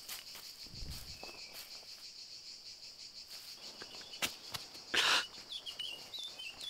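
Crickets chirring steadily, with dry leaves rustling and crackling as burlap sacks are handled among them; a louder, brief rustle about five seconds in.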